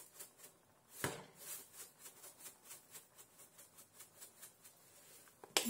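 Faint, light ticking and rustling, about four ticks a second, with one louder tap about a second in, as dried cilantro and parsley are shaken out of a container onto food in a pan. A phone notification tone starts suddenly at the very end.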